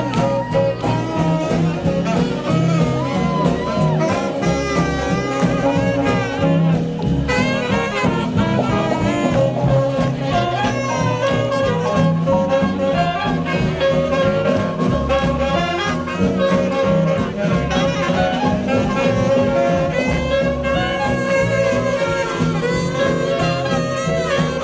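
Live swing jazz band playing an instrumental chorus: saxophone and trumpet lines over a steady swing rhythm section.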